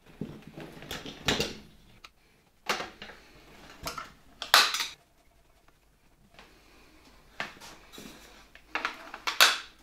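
Short metallic clinks and scrapes, about seven separate bouts with pauses between, from a screwdriver and small screws and washers on the steel housing of a 1964 Gamma II vacuum cleaner as its cover is screwed down. The loudest clatters come about halfway through and near the end.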